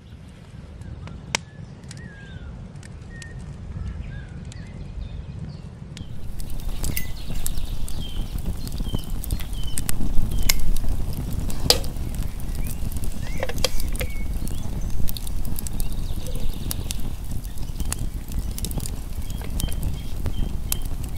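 Wood campfire burning and crackling, with sharp pops scattered throughout, louder from about six seconds in over a low rumble.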